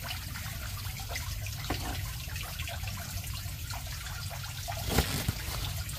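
Ginger fish sauce trickling from a container onto a plate of fried fish, with small drips over a steady background hiss. A single sharp knock near the end.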